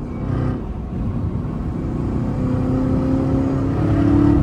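Chevrolet Camaro ZL1 1LE's supercharged 6.2-litre V8 pulling under throttle at highway speed, heard from inside the cabin: the engine note climbs steadily in pitch and loudness through the second half, then drops off suddenly at the end.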